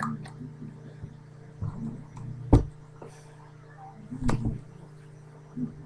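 Steady low hum with a few short thumps, the sharpest about two and a half seconds in and another just past four seconds.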